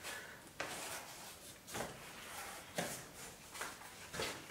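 Cardboard being handled and fitted into place: a few short scrapes and taps, about one a second.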